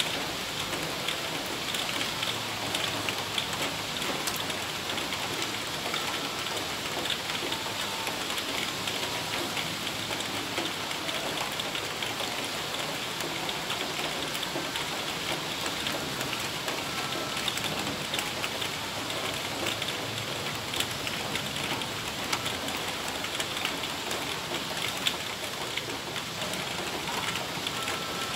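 Heavy rain falling steadily: an even hiss with a dense patter of individual drops.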